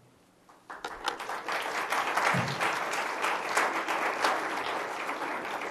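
Audience applauding, starting just under a second in.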